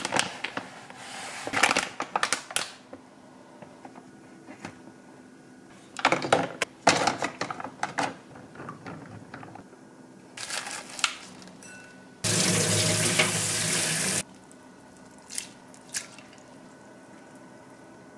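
Kitchen prep handling: several spells of rustling and clattering from plastic food packaging and a plastic container, then a kitchen tap running for about two seconds, followed by a couple of light knocks.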